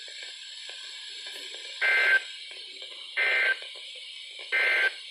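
Three short buzzing bursts of Emergency Alert System digital data tones, about a second and a third apart, over steady weather radio receiver hiss: the end-of-message code that closes the flash flood warning broadcast.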